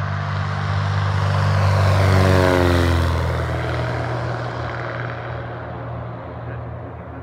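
Single-engine propeller airplane taking off at full power and passing close by, loudest about two seconds in, its pitch dropping as it goes past, then fading as it climbs away.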